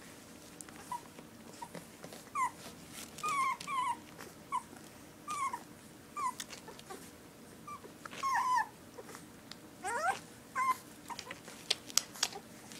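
17-day-old puppies squeaking and whimpering while they nurse: about a dozen short high squeaks, one longer rising whine about ten seconds in, and a few sharp clicks near the end.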